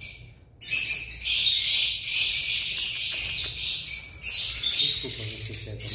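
A flock of caged lovebirds chattering in a dense, shrill, almost unbroken stream of high chirps, after a brief lull at the very start.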